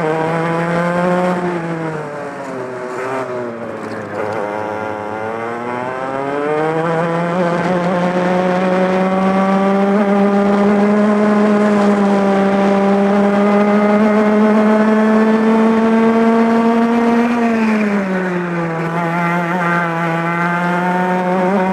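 Two-stroke racing kart engine heard onboard. Its note falls about a second in as the kart slows for a corner, climbs steadily for over ten seconds under acceleration, then drops again near the end for the next corner and holds.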